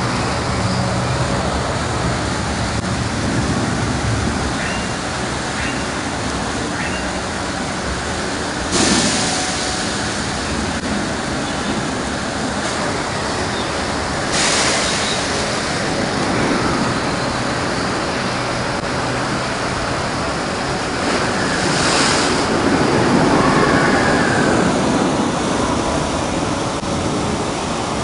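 Water rushing steadily through a water ride's flume channel, with three brief louder surges of noise.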